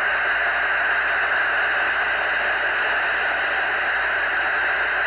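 Steady hiss and static from an SDR receiver's FM audio on the 11-metre CB band, with no speech or modulation coming through.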